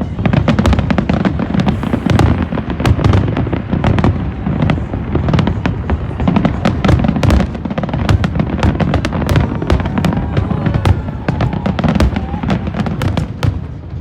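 Aerial fireworks display: a dense, unbroken run of sharp crackling bursts over a low, rumbling boom.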